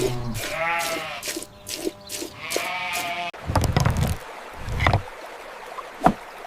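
Sheep bleating twice, two wavering calls in the first three seconds, followed by a few short low thumps in the second half.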